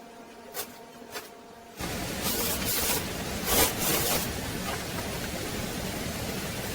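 A few faint clicks, then a loud steady hiss that starts abruptly about two seconds in and holds, swelling briefly a couple of times.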